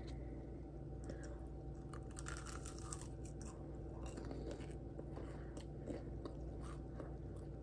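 Close chewing and crunching of a piece of breaded fried chicken, with many small irregular crackles, over a steady low hum.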